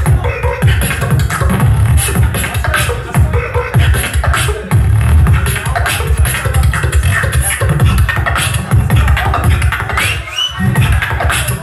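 Solo beatboxing amplified through a club sound system: a heavy pulsing bass line with sharp clicks and snare-like hits in a fast rhythm. It breaks off briefly near the end, then picks up again with short rising whistle-like sweeps.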